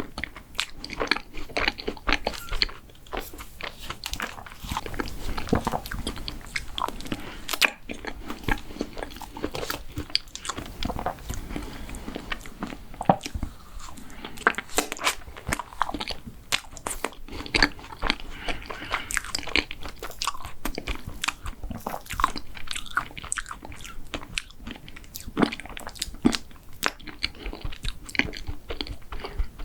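Close-miked eating: a person biting and chewing crunchy mint-chocolate dessert, a continuous run of irregular sharp crunches and wet chewing.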